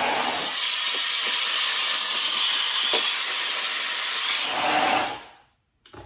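Dyson Supersonic hair dryer blowing steadily, a high, airy rush of air, which fades out about five seconds in.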